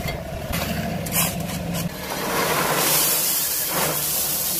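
Pea gravel pouring out of a tipped wheelbarrow into a drain trench: from about two seconds in, a steady hiss of stones sliding and spilling, over a low machine hum.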